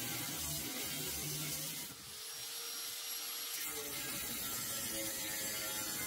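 Corded electric angle grinder with a cut-off wheel cutting through a thin sheet-steel replacement cab corner panel: a steady high hiss of the wheel on metal. About two seconds in, the sound abruptly thins to a steady hum for a second and a half before the cutting noise returns.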